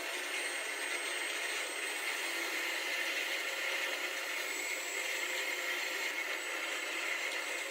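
Small electric power tool running steadily, an even whirring noise with a faint high whine above it.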